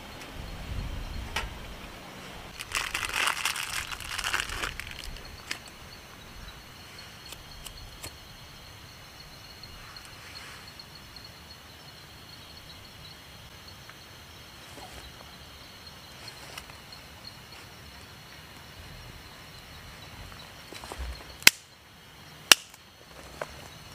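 Forest ambience with a faint steady high drone. A burst of rustling noise comes about three seconds in, and two sharp, loud clicks a second apart come near the end.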